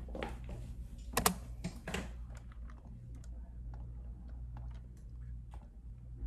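Typing on a computer keyboard: irregular key clicks, with a louder cluster about a second in, over a steady low hum.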